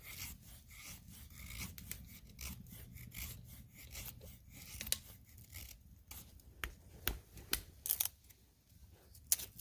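Handling noise of a small folding pocket knife: rubbing and scraping of hands on the knife, with a few sharp clicks in the second half.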